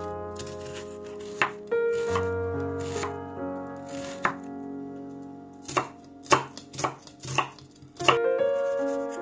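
Santoku knife chopping a red onion on a bamboo cutting board: about a dozen sharp, uneven strokes, loudest in the second half. Piano music plays underneath.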